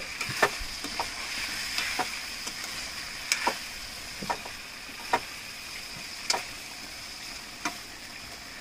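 Chicken with ginger-garlic paste sizzling as it fries in a pan, with a spoon knocking and scraping against the pan about once a second as it is stirred.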